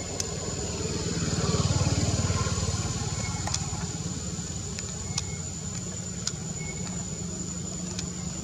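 A motor vehicle engine running with a steady low hum, swelling louder about a second in and easing back by about three seconds.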